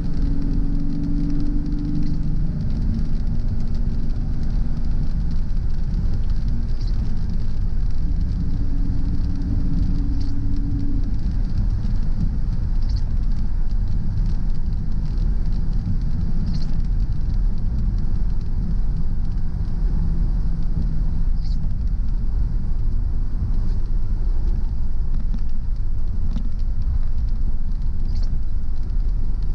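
Car driving on a wet road in the rain: a steady low engine and tyre rumble, with the engine note rising and settling now and then, and faint ticks every few seconds.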